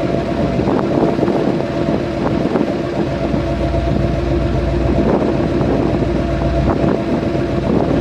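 A vehicle engine running steadily with a constant hum, wind buffeting the microphone, and a few light knocks.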